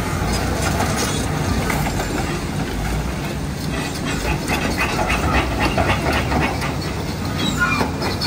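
Heavy diesel machinery running as a wheel loader dumps a bucket of pozzolan into a steel dump truck body. The load pours in with a rattling clatter of stones for a few seconds about halfway through.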